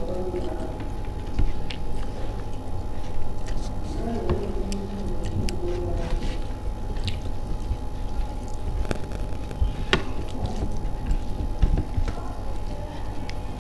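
A person eating: chewing with scattered small wet clicks, over a steady background hum.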